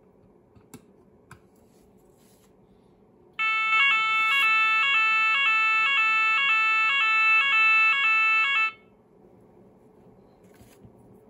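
Roshni LP fire alarm sounder playing its French fire alarm tone. It is a loud two-tone signal that alternates evenly between two pitches, starting about three seconds in and cutting off about five seconds later.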